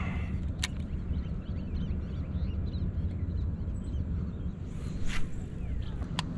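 Outdoor ambience on open water: a steady low rumble of wind on the microphone, with a scatter of small bird chirps in the first half and a few sharp clicks.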